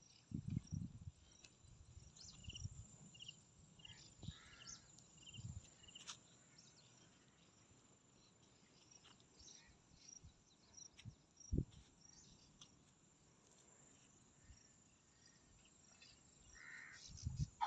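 Quiet open-air ambience: faint insects trilling and small birds chirping in short runs of pips. A few soft low thumps come through, the clearest about eleven and a half seconds in.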